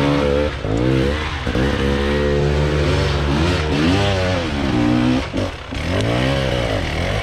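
Enduro motorcycle engine revving hard and falling back again and again, its pitch rising and dropping every second or two as the throttle is worked.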